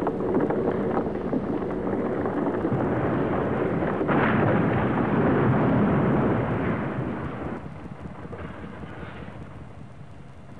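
A building's dome collapsing with a rumbling crash. The crash surges sharply about four seconds in, stays loud for a few seconds, then dies away.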